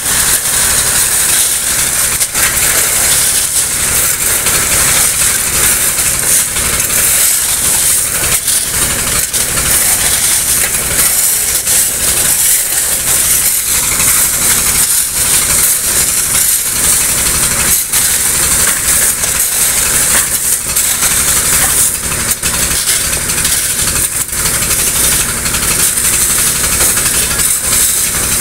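Engine of a gravel-loading machine running steadily while wet gravel and water pour out of its pipe into a dump-truck bed, making a constant hissing rush, with shovels scraping through the gravel.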